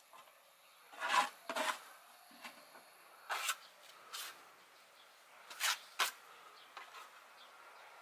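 A few short, separate scraping and rubbing sounds at irregular intervals, the loudest about a second in.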